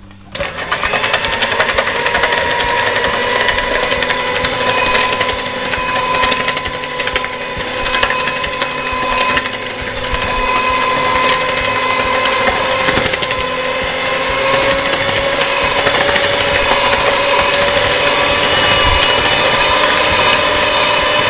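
Electric hand mixer switched on about a third of a second in, then running steadily with a motor whine whose pitch creeps slightly higher over time. Its twin beaters are whisking egg yolks, sugar, butter and dissolved instant yeast in a plastic bowl, clicking against the bowl.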